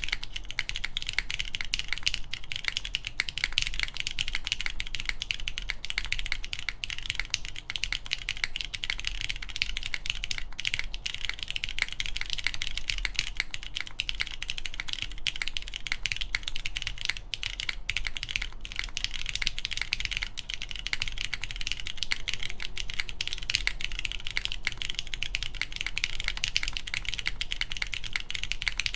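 Continuous fast typing on a mechanical keyboard with lubed Cherry MX Brown tactile switches on a full aluminium plate, fitted with GMK keycaps: a dense, steady stream of key clacks.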